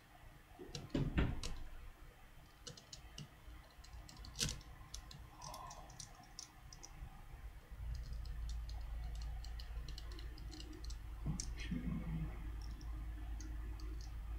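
Small scattered clicks and ticks of a small Phillips screwdriver and tiny screws against an iPhone 3G being screwed back together. A low steady hum comes in about eight seconds in.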